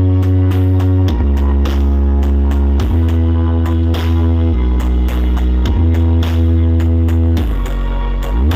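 Loud music with guitar and a drum beat played through a large outdoor sound system, its very heavy bass notes changing about every second and a half.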